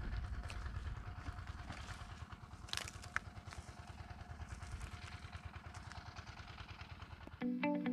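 A low, pulsing engine rumble that fades away over several seconds, with a few faint clicks about three seconds in. Guitar music cuts in just before the end.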